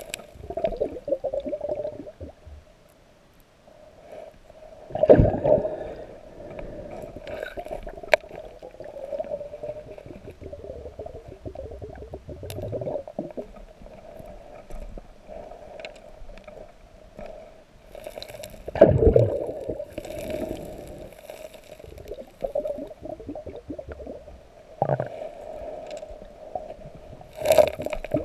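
River water heard underwater, a steady gurgling rush, with several knocks and scrapes of stones and gravel being shifted by a gloved hand on the riverbed; the loudest knocks come about five seconds in and about two-thirds of the way through.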